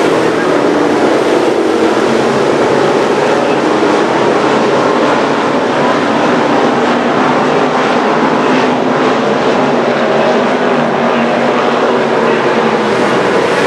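Street stock race cars running together on the track, a loud, steady, unbroken din of engines.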